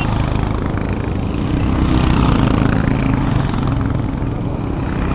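Motorcycle engine running as the bike pulls away and rides on, its note rising a little about two seconds in.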